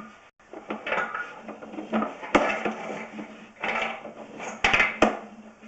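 Sewer inspection camera gear clattering and scraping: irregular knocks and rattles, the loudest a few sharp knocks near the end, over a faint steady hum.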